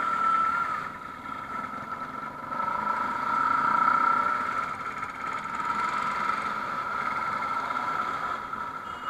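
Motorcycle engine running at low speed amid slow, dense city traffic, with other engines around and a steady high whine that swells about three to four seconds in.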